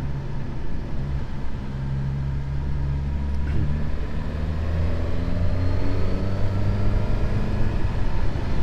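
Suzuki GSX-S 1000GT's inline-four engine under way, running steadily and then rising in pitch through the second half as the bike accelerates.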